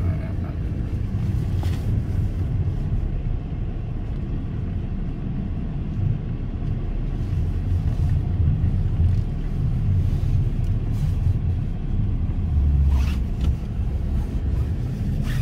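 Car heard from inside the cabin while driving: a steady low rumble of engine and road noise, with a few faint clicks.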